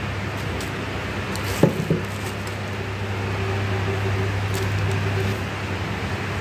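Steady low hum with an even background hiss, and a single short knock about one and a half seconds in.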